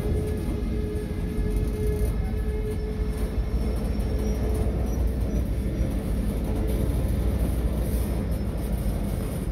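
Freight cars, open-top gondolas, rolling slowly along the track with a steady low rumble of wheels on rail. A faint steady whine sounds over the first several seconds and then fades.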